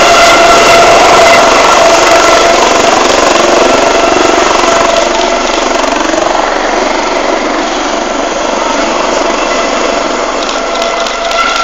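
Air ambulance helicopter lifting off and climbing away overhead: a steady high turbine whine over rotor noise, very loud at first and easing off a little as it moves away.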